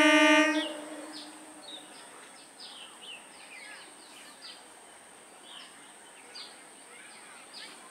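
Electric multiple unit train's horn cutting off about half a second in, then birds chirping with many short high calls over a thin steady high whine.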